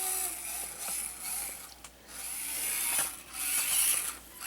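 Axial SCX24 micro crawler's small electric motor and geared drivetrain whirring in bursts of throttle, swelling and dropping away several times, with a faint steady whine near the start.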